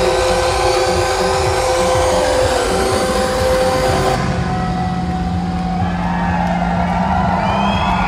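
Loud electronic dance music from a DJ set, in a build-up: rising sweeps over a dense mix whose treble cuts off suddenly about halfway through, leaving a held low note, with new rising sounds coming in near the end.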